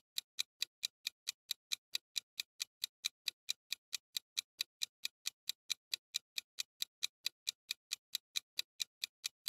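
Clock-tick countdown sound effect: a fast, even ticking, about five ticks a second, marking the time left to answer the quiz question.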